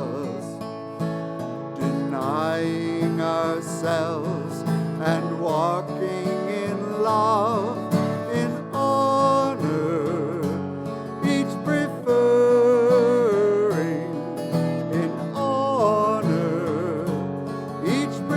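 A hymn sung by a voice with vibrato over acoustic guitar accompaniment, the melody moving through held, wavering notes.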